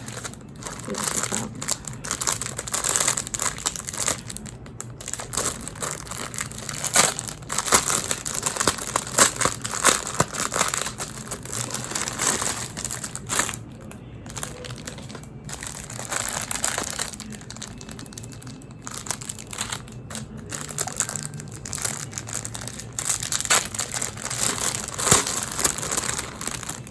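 Packaging crinkling and rustling as an earring packet is handled and opened by hand, in irregular crackly strokes.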